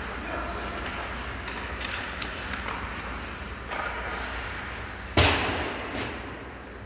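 Ice hockey play in a rink: a steady hiss of skates and rink noise with a few light clacks of sticks, then one loud sharp bang about five seconds in that rings on in the hall.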